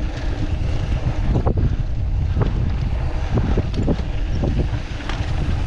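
Wind rushing over the microphone of a mountain bike riding fast downhill, with scattered knocks and rattles from the bike over rough trail.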